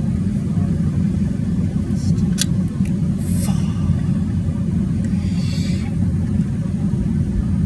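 1991 Buick LeSabre's 3.8-litre V6 idling with a steady low rumble. A sharp click about two and a half seconds in and two brief rustles come from handling parts in the engine bay.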